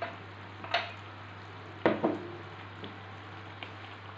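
Fish curry simmering in a wok over a portable gas stove with a steady hiss, broken by three sharp knocks of kitchen utensils, the loudest a pair about two seconds in.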